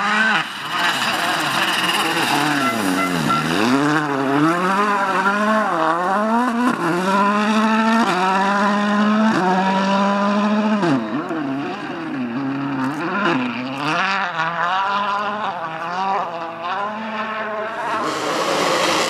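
Rally car engine revving hard, its pitch climbing and dropping sharply again and again with gear changes and lifts off the throttle, with a deep dip about three seconds in. A rush of noise joins it near the end.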